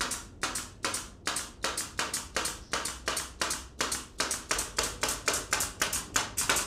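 Scissors snipping through the matted pile of a shag rug: quick, even snips at about four a second.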